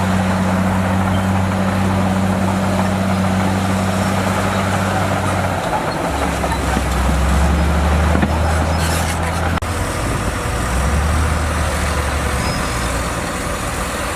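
Heavy diesel engine of earthmoving equipment running steadily, its pitch dropping about five seconds in and shifting again around ten seconds.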